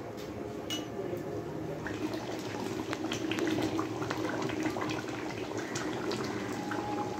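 Chicken curry gravy boiling in a metal kadai, bubbling steadily with frequent small pops.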